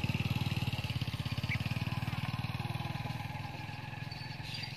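A small engine running steadily with a fast, even beat, slowly fading away over a few seconds as it moves off.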